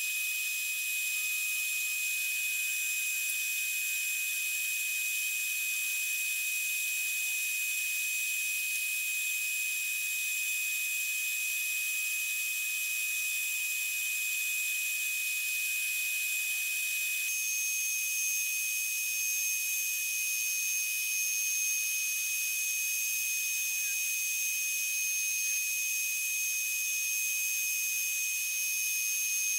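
Small metal lathe running with a steady high-pitched whine while its cutting tool turns down a wooden dowel, with a hiss from the cut. The whine shifts slightly in pitch a little over halfway through.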